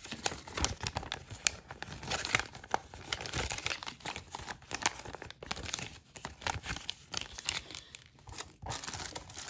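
Folded paper instruction leaflets rustling and crinkling in the hand, a dense run of irregular crackles; near the end a clear plastic bag crinkles as it is touched.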